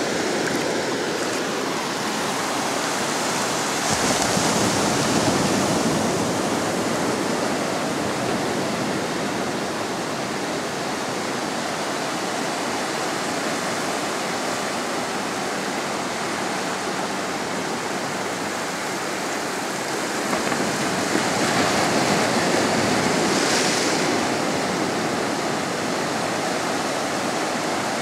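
Surf on a sandy beach at the incoming tide: a steady wash of waves, swelling louder as bigger waves break about four seconds in and again after about twenty seconds.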